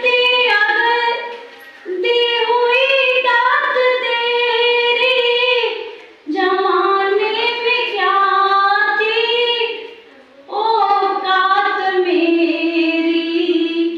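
A woman singing solo into a microphone, with no accompaniment. She holds long, gliding notes in four phrases with short breath pauses between them.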